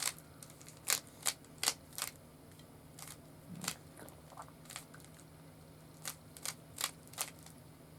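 Rubik's cube being turned by hand: sharp plastic clicks of its layers snapping round, coming irregularly in quick groups of two to four with short pauses between.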